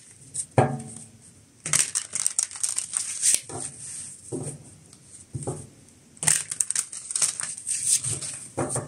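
A deck of tarot cards being shuffled by hand: bursts of cards rustling and snapping against each other, in clusters with short pauses between.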